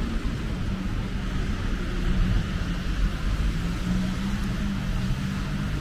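City street traffic on a wet road: a steady vehicle engine hum with the hiss of tyres, the hum growing stronger about two seconds in.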